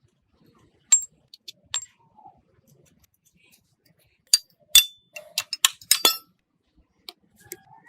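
Small metal parts clinking and tapping against each other and a hard surface, some strikes ringing briefly. A few separate clinks come first, then a quick cluster of louder ones about halfway through.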